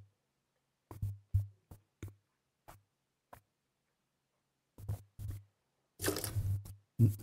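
Wine-tasting mouth sounds: a mouthful of wine sipped and worked in the mouth in a series of short slurps and smacks, then a longer, louder stretch of spitting into a metal spit bucket about six seconds in.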